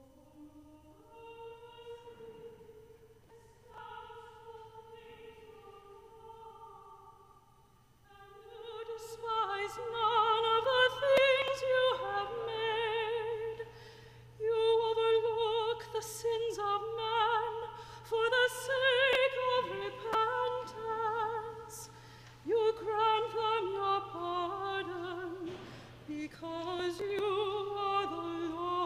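Pipe organ playing softly with steady held notes, then about eight seconds in a solo female cantor comes in louder, singing with a wide vibrato over the organ.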